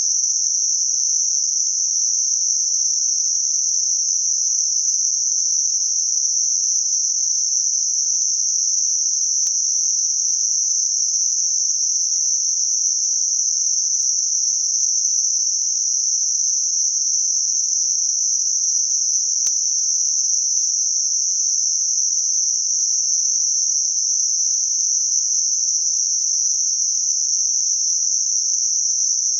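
Synthetic 6 kHz Gaussian narrow-band noise, a tinnitus-masking sound: a steady, even, high-pitched hiss with no low end.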